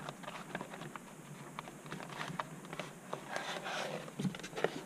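Handling sounds of a foam flying-wing airframe and its servo wires: scattered light clicks and taps as the wires are pressed into the foam, with a brief rubbing scrape about three seconds in as the airframe is shifted on the cutting mat.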